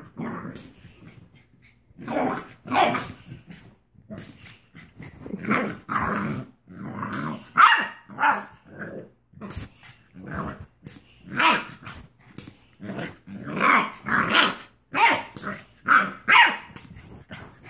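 Pit bull puppy growling and barking in play, in a string of short bursts with brief pauses between them.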